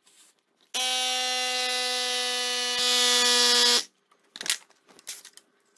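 Ryobi cordless tyre inflator running for about three seconds with a steady pitched hum, pumping up the small front tyre of an electric bike. The hum turns hissier shortly before it cuts off abruptly. A few faint clicks follow.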